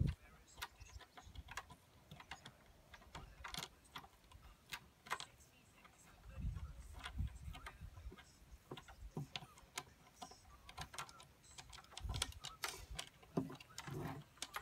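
Irregular small clicks and light knocks from hands working parts inside a hollow plastic drum while a feeder is assembled, with a few low thumps.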